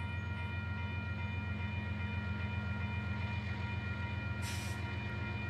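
Battery-powered toy train set humming steadily with a fast, even rattle and a few steady higher tones, with a short hiss about four and a half seconds in.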